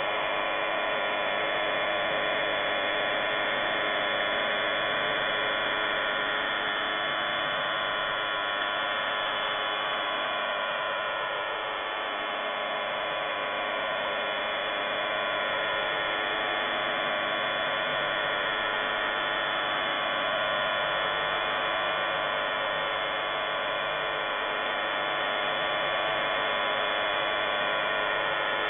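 Unidentified shortwave signal on 5211 kHz heard through an SDR receiver: a steady buzzing drone of many stacked tones over noise, suspected jamming.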